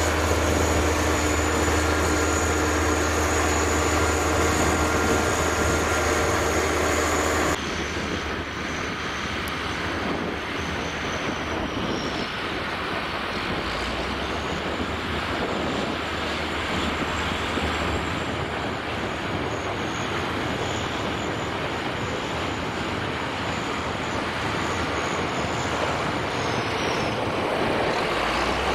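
Scania P440 dump truck's six-cylinder diesel running at steady raised revs with the tipper body raised. About seven and a half seconds in it cuts to a loaded Scania 6x6 dump truck driving slowly through mud, its engine running rougher with a faint high whistle that wavers in pitch.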